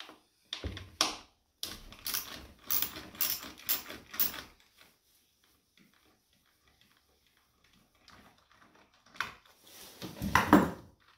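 Socket wrench ratcheting in short runs of clicks as a bolt on a scooter's air filter and belt housing is loosened, then a pause and a louder clatter near the end.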